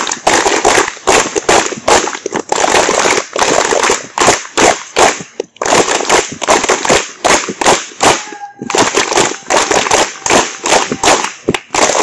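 A crowd of students applauding: dense, irregular hand clapping that settles into a steady rhythmic beat near the end.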